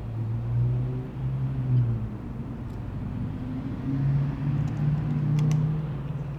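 Low motor hum, with a pitch that steps up about four seconds in.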